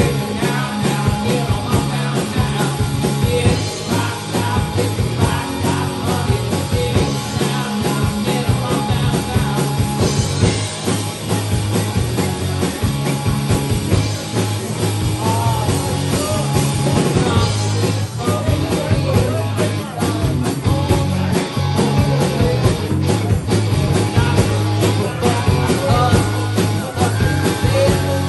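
Live rock band playing: electric guitars, bass and a drum kit, with a lead singer on vocals, steady and loud throughout.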